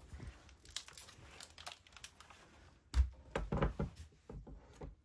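Irregular crinkling and light clicking, with a cluster of low thumps and knocks about three seconds in.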